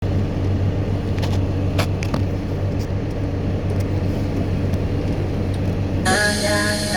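Caterpillar 420 backhoe loader's diesel engine running steadily, with a few sharp clanks. Rap music starts about six seconds in.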